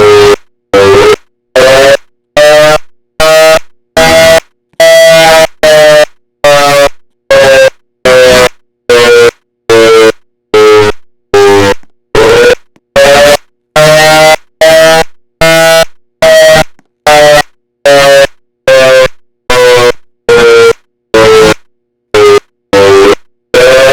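Siren sounding a pulsed wail: a loud tone switched on and off about five times every four seconds, each blast starting sharply and fading quickly, while its pitch slowly rises and falls over several seconds.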